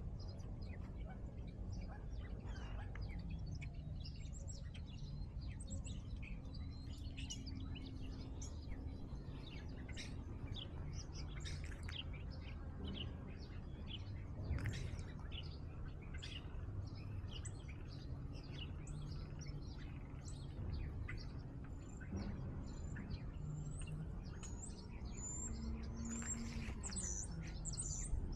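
Small birds chirping repeatedly, with a louder run of high chirps near the end, over a steady low rumble.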